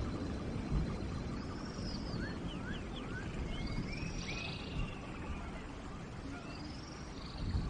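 Steady rain falling, with birds calling over it: a few short rising chirps and several high arched whistles through the middle and near the end.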